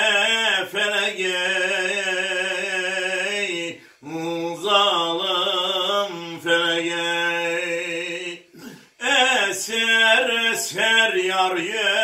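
A man singing an uzun hava, the unaccompanied free-rhythm Turkish folk song, in long held phrases with wavering, ornamented pitch. He breaks twice for breath, about four seconds in and near nine seconds in.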